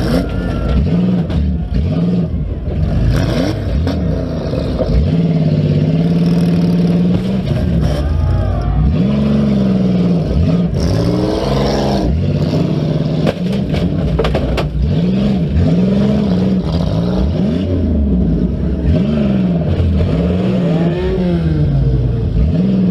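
Demolition derby car engines revving up and down again and again, several engines overlapping, with a cluster of sharp bangs of cars hitting each other about halfway through.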